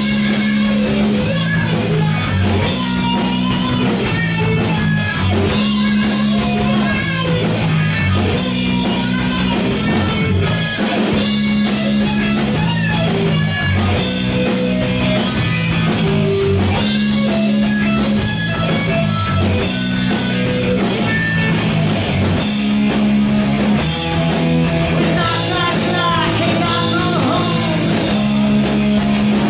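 A heavy metal band playing live, with electric guitars, bass notes, drums and a vocalist singing into a microphone.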